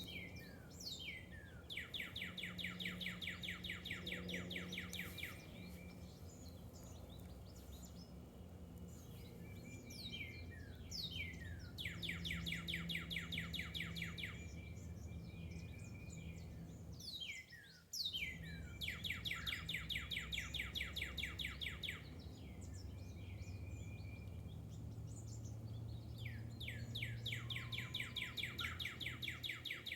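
A songbird singing the same song over and over, about every eight seconds: a few quick down-slurred notes and then a long, rapid, even trill lasting three to four seconds. A low steady hum runs underneath.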